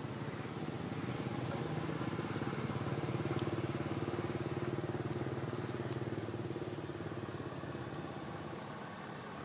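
A motor vehicle's engine passing by, growing louder to a peak about three and a half seconds in and then fading away.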